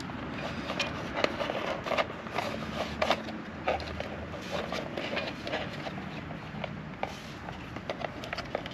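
Irregular light clicks and scrapes of hands handling electrical wires, connectors and plastic wire loom.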